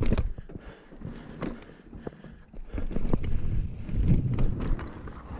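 Mountain bike clattering over rough rock and roots, its frame and parts rattling with irregular sharp knocks over the low rumble of the tyres.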